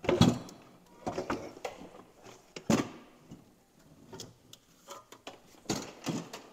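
A snowmobile engine being worked loose and lifted out of its chassis, giving irregular clunks and knocks. The loudest comes right at the start, with others scattered through.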